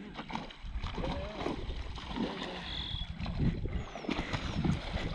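A boat running on the water: a steady low rumble from its motor and the water, with a few faint distant calls.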